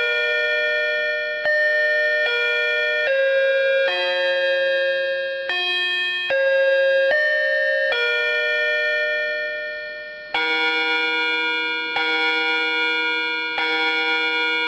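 Android Go Edition phone tones playing: a slow melody of ringing notes, each fading before the next. About ten seconds in, a different tone starts and repeats a short figure about every second and a half.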